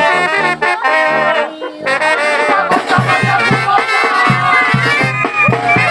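Brass band music with trumpets and trombones playing a melody; about three seconds in, a steady low bass beat joins.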